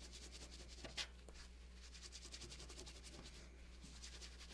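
Faint rapid rubbing of hands working a piece of sealskin against a tabletop, with a short sharp tick about a second in.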